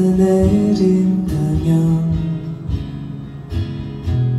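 A man singing held notes over a strummed steel-string acoustic guitar, the strums coming in a steady slow beat.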